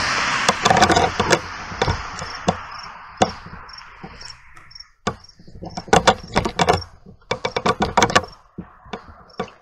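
A passing car's road noise fading away over the first few seconds, with crickets chirping. Over it are clusters of sharp clicks and knocks close to the microphone.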